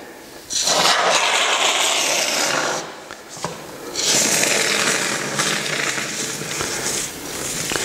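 Two-component (2K) polyurethane assembly foam hissing out of an aerosol can into the gap behind a door frame, in two long spurts with a short pause between, as the can is emptied.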